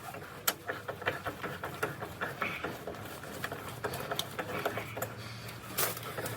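Irregular metallic clicks and clinks of hand tools working on the bolts of a log splitter's hydraulic ram end cap, with one louder clack near the end.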